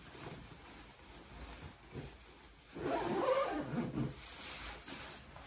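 The long zipper of a padded winter coat being pulled up from the hem to the collar, with fabric rustling. About three seconds in, a louder vocal cry lasts about a second.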